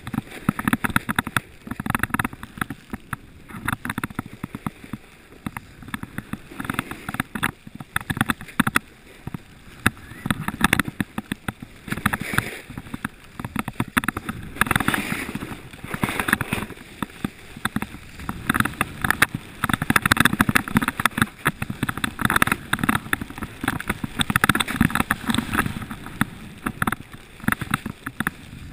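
Snowboard sliding and scraping over packed, groomed snow on a downhill run, coming in uneven surges as the edge bites and releases.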